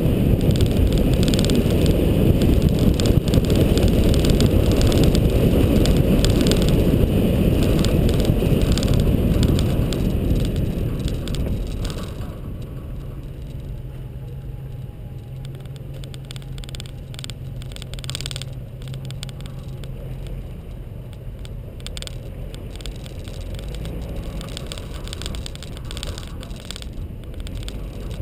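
Nissan GU Patrol with its TB45 straight-six petrol engine driving on a dirt forest track: a loud rumble of wind and tyres on the gravel, which drops to a quieter, steady engine hum about twelve seconds in as the vehicle slows.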